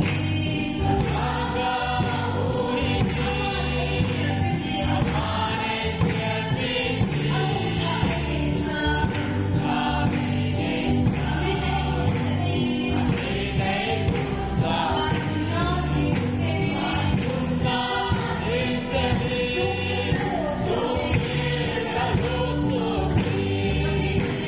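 A large congregation singing a gospel song together, clapping along, over an instrumental backing with a steady bass line.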